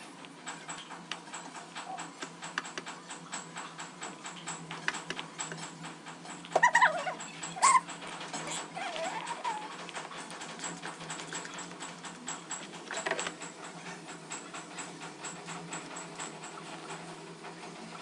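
A few short animal calls over faint, continuous clicking. The loudest is a pair of calls a little past six seconds in, followed by a softer gliding call and a short one later.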